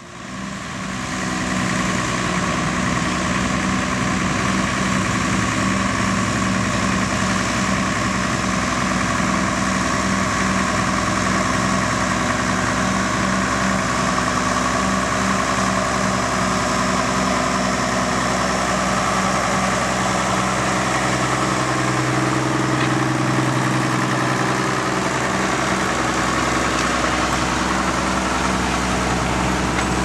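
Schlüter Super 1500 TVL tractor's diesel engine running steadily under load while pulling a plough through the ground.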